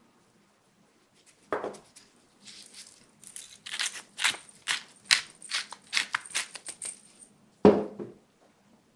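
Pepper mill grinding black pepper over a pan: a quick run of crunchy grinding twists, about three a second, with a faint high whine. A loud knock near the end as the mill is set down on the wooden table, and a softer knock about a second and a half in.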